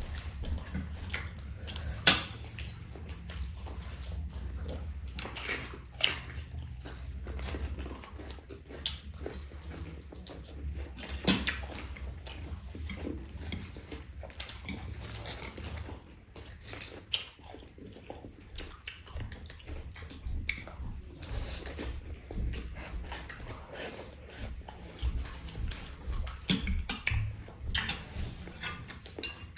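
Close-miked eating: irregular biting, crunching and chewing of food, with a low steady hum underneath and one sharp, loud click about two seconds in.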